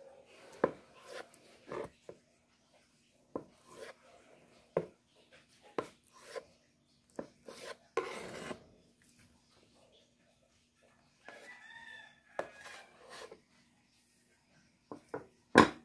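Kitchen knife cutting through a block of firm tofu and knocking on a plastic cutting board, with scattered taps and rubbing as the tofu pieces are handled; the loudest knock comes near the end.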